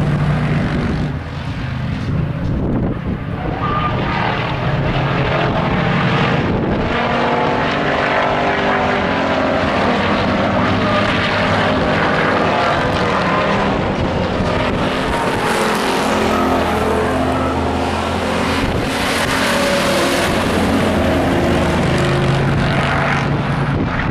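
Engines of several stock-class pickup trucks racing on an oval track, running hard under load as they pass, several engines sounding at once.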